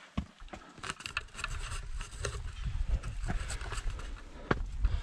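Footsteps crunching and scraping on gravel and rock, irregular, with a low steady rumble on the microphone and a sharp knock about four and a half seconds in.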